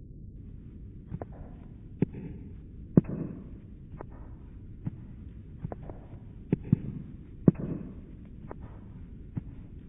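An irregular series of sharp cracks or pops, about a dozen and a half of them, some loud and some faint, over a steady low rumbling hiss.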